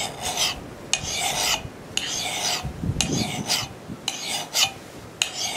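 Coarse side of a Nicholson axe file rasping across the steel cheek of a Council Tool boys axe. It works in single-direction push strokes, about one a second, each lasting around half a second. The filing is thinning the cheek behind the bit.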